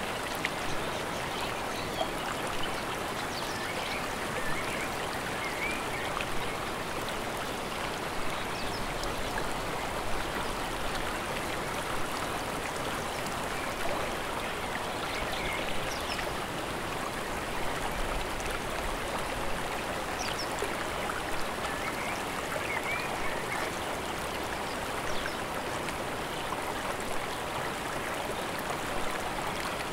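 Steady rush of flowing mountain stream water, an even unbroken hiss of moving water.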